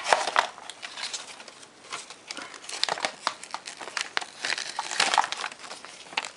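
Packaging being handled and pulled out of a headphone box: plastic and paper crinkling and rustling in irregular bursts, loudest at the start and again about three and five seconds in.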